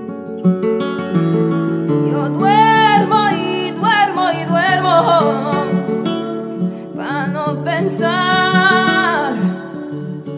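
Background music: acoustic guitar picking steadily, with a voice singing long, wavering phrases in two passages, the first about two seconds in and the second about seven seconds in.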